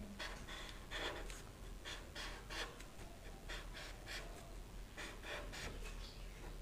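Felt-tip marker drawn across paper in a run of short, faint scratchy strokes, two or three a second, as short straight lines are traced.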